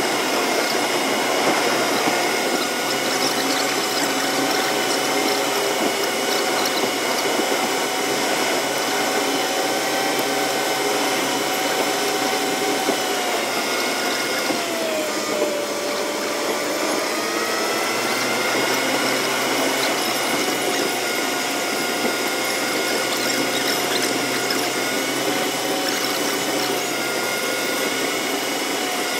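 A car driving along a highway, heard from a dashcam inside the cabin: steady engine and tyre noise with a whine. The whine dips in pitch about halfway through and then glides back up.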